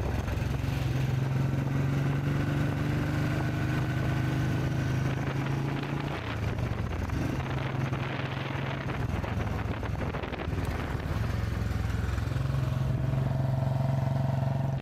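Royal Enfield single-cylinder motorcycle engine running steadily while riding, heard from the handlebars. The engine note drops twice and climbs back each time as the rider eases off and opens the throttle again.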